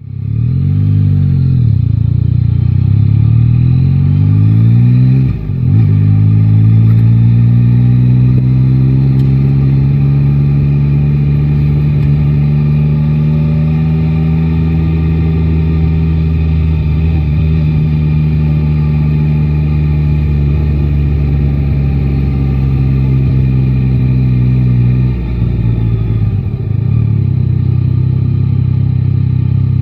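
Yamaha Tracer 9 GT's 890 cc inline-three engine under way: its note rises and falls several times in the first few seconds, dips briefly, then climbs into a long steady pull. Near the end the revs drop and settle to a lower, even note.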